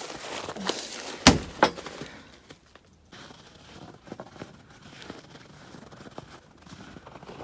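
Footsteps crunching in snow, with two sharp cracks close together about a second in, then quieter.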